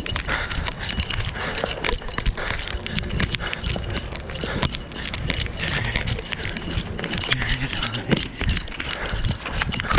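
Footsteps on concrete walkways, heard through a chest-mounted GoPro that knocks and jostles with each stride.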